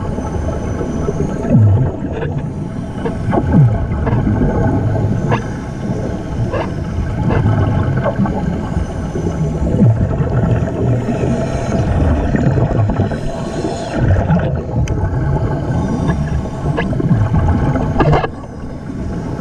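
Muffled underwater noise through a camera housing: steady low rumble and gurgling with a faint steady hum, a few short sliding sounds and scattered light clicks.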